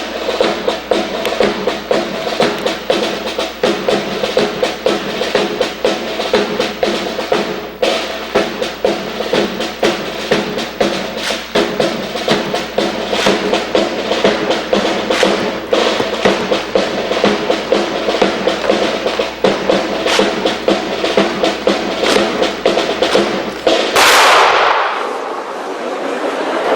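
Drill-team performance with rapid, sharp percussive knocks and clicks over a steady musical tone, then applause breaks out about 24 seconds in.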